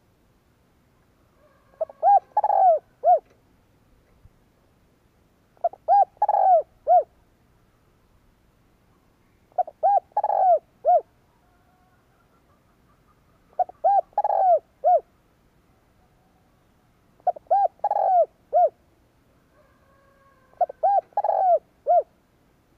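Spotted dove cooing. Six phrases come at even gaps of about four seconds, each a quick run of short notes leading into a longer coo and ending on a short note.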